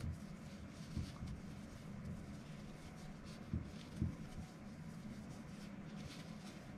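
Yarn rustling and scratching against a crochet hook as single crochet stitches are worked, with a few soft knocks and a low steady hum underneath.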